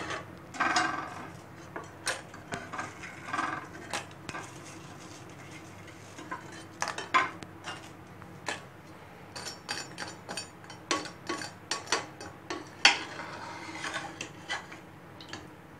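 Stainless-steel slotted skimmer clinking and scraping against a steel saucepan while fried bread rounds are dipped in sugar syrup: many light, irregular clinks with a few short scrapes.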